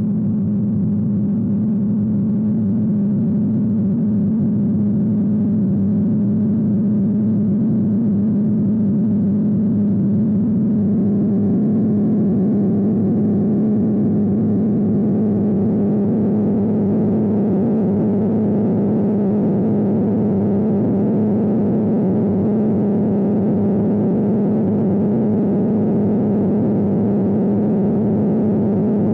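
Sustained synthesizer drone with no beat: a steady low hum under a noisy, rough layer that grows a little fuller and brighter about a third of the way through.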